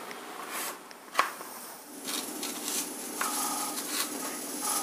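Kitchen knife chopping carrot on a plastic chopping board: a string of light, separate knocks about every half second, the sharpest one about a second in.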